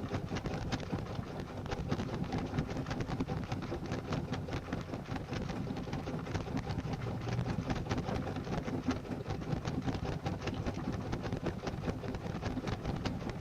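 Washing machine drum tumbling a wash, heard from inside the drum: water sloshing and splashing steadily, with a constant patter of small knocks.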